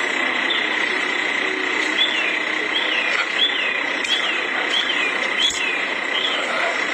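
Outdoor sound picked up by a home security camera's microphone: a steady hiss with a constant high whine under it. From about two seconds in, a bird gives a string of short falling chirps, roughly two a second.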